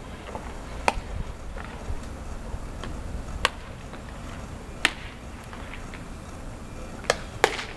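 Baseballs popping into leather gloves during a game of catch. About five sharp pops come at irregular intervals, two of them in quick succession near the end.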